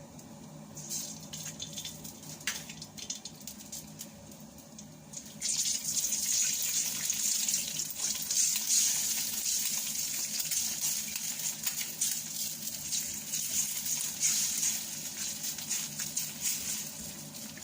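Egg frying in hot oil in the pan: after a few light clicks, a loud steady sizzle starts suddenly about five seconds in and keeps on.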